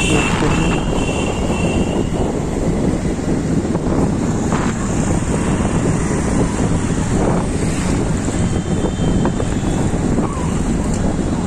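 Steady rush of wind on the microphone mixed with the rumble of engines and tyres from a ride through city street traffic. A vehicle horn note trails off at the start, and fainter horn notes come again about nine seconds in.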